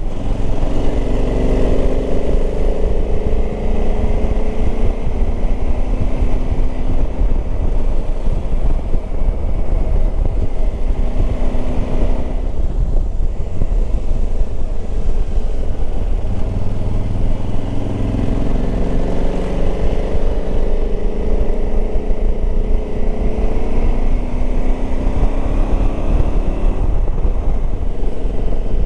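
Motorcycle engine running under way, its note rising and falling several times with the throttle, over a heavy low rumble of wind on the microphone.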